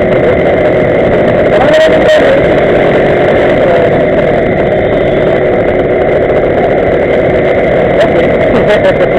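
Small two-stroke gas-scooter engines running steadily, with voices mixed in.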